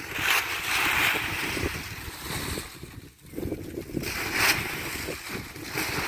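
Gusty wind buffeting the microphone, rising and falling, with dry leaves and a plastic sack rustling as handfuls of leaves are scooped out.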